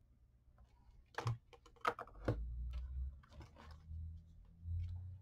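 A few light clicks and taps of small craft pieces and tools being handled on a work surface, with a low rumble of handling from about two seconds in.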